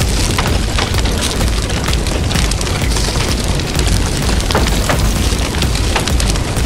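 Wood fire burning steadily, with frequent sharp crackles and pops from the damp firewood, over a continuous low rumble.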